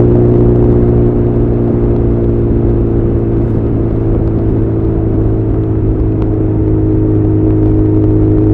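Honda CB1100 air-cooled inline-four running through an Arrow titanium full exhaust system while riding at a steady cruise, the engine note dipping slightly in the middle and building again toward the end.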